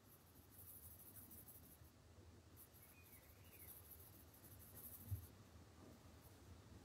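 Faint scratching of a Derwent Chromaflow coloured pencil on paper as a colour swatch is filled in, in two long spells, with a single soft knock about five seconds in.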